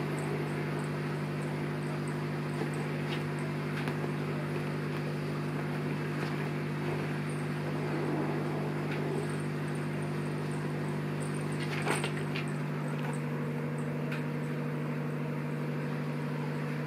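A steady low mechanical hum, like a small motor running, with a few light knocks and taps.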